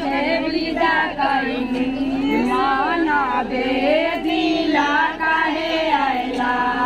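Several women singing together in long, drawn-out notes, with crowd talk mixed in.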